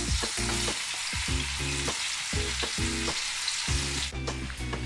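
Fish steaks shallow-frying in hot oil in a frying pan, sizzling steadily.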